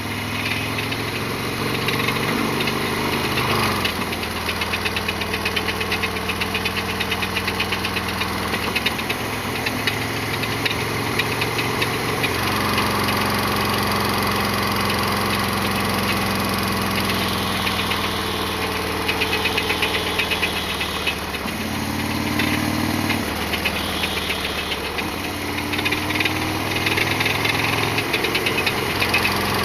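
Harley-Davidson XL1200R Sportster's air-cooled V-twin engine running under way, its note stepping up and down several times as the revs change. A rapid mechanical clatter rides on the engine sound, the loud abnormal noise the owner reports from this bike.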